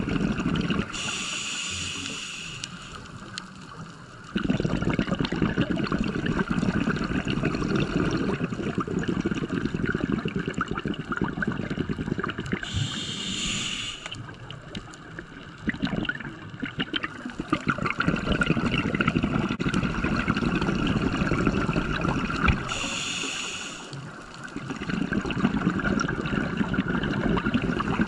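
Scuba diver breathing through a regulator. Three slow breaths come in as short hisses, about a second in, midway and near the end, and between them long streams of exhaled bubbles bubble and gurgle.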